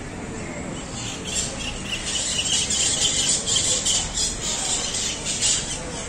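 A flock of parrots squawking and screeching, a dense run of harsh calls that swells from about a second in and eases off near the end.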